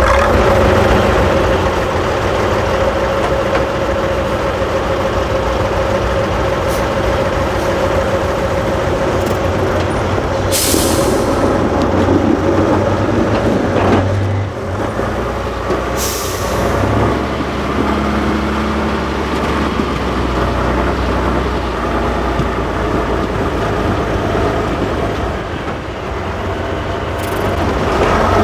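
Diesel engine of an 8x8 off-road trial truck running under load as it crawls slowly over rocks. Air brakes hiss sharply twice, about ten and sixteen seconds in.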